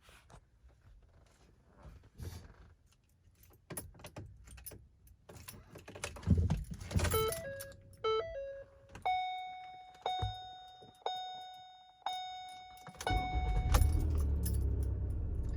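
Car keys jangling and clicking at the ignition of a 2016 Ford Transit Connect. This is followed by a short run of electronic dashboard tones and five chimes about a second apart. Near the end a steady low rumble sets in as the engine runs.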